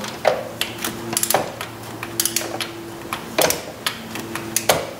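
Torque wrench ratcheting as a water pump bolt is tightened on a Chevy 3800 V6: a string of sharp, irregular metal clicks.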